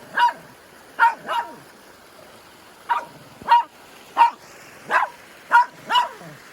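A dog barking, about nine short sharp barks at an uneven pace, over a low steady background hiss.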